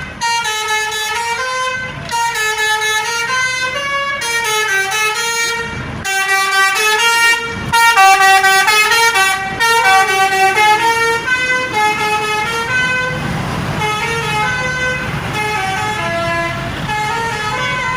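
A bus's basuri musical horn (the multi-tone 'telolet' horn) playing a tune, one held note after another in quick steps.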